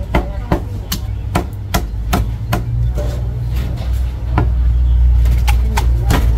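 A heavy Chan Chi Kee Chinese cleaver chopping a roast chicken on a thick wooden chopping block: about a dozen sharp chops at an irregular pace, closer together in the first three seconds, over a steady low hum.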